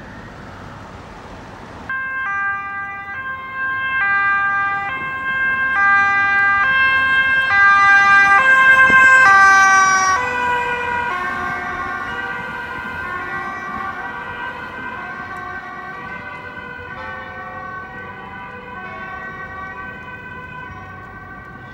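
Police car's two-tone siren alternating between a high and a low note, cutting in about two seconds in over steady traffic noise. It grows louder as the car approaches, drops in pitch as the car passes about halfway through, then fades as it drives away.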